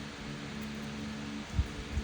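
A steady mechanical hum with hiss, with a dull low thump about one and a half seconds in.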